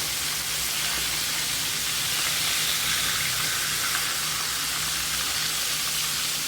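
Pieces of fish frying in hot oil in a pot: a steady sizzle, with a faint low hum underneath.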